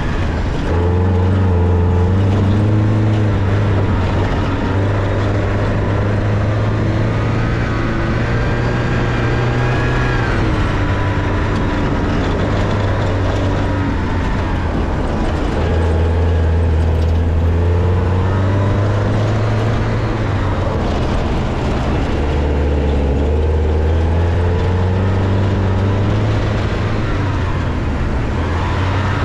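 Porsche 944's four-cylinder engine, heard from inside the cabin, pulling hard with the revs climbing and dropping over and over as the driver goes through the gears and lifts for corners.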